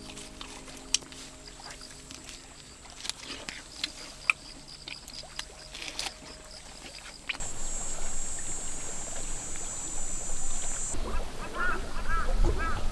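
Faint clicks and scrapes of a knife and fork working a roast leg of lamb on a small charcoal grill. About seven seconds in the sound changes to a steady high hiss, and near the end a run of short repeated chirps comes in over a low rumble.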